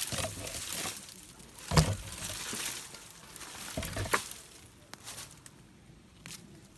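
Irregular knocks and light clinks of objects being handled, with one louder knock a little under two seconds in and another pair around four seconds.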